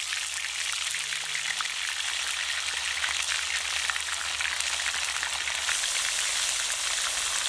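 Pomfret deep-frying in hot oil in an iron kadai: a steady sizzling hiss with fine crackling.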